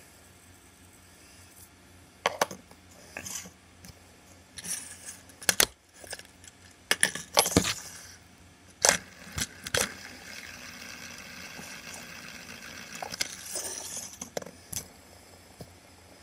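Fidget spinners being handled and set down on a table: a run of sharp clicks, clinks and clatters of plastic and metal, starting about two seconds in.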